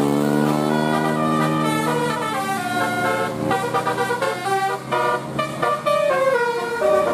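Bus telolet horn, a multi-tone air horn, playing a tune: one long held chord, then a quick run of short notes stepping up and down.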